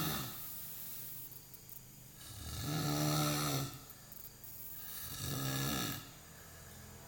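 Loud snoring from a sleeper who has just dropped off: the end of one snore, then two more long snores about three seconds apart, with quieter breathing in between.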